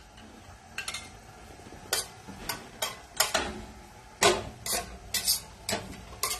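Metal kitchen tongs clicking and tapping against a stainless steel frying pan as garlic cloves are set into the oil: about ten sharp clinks at irregular intervals.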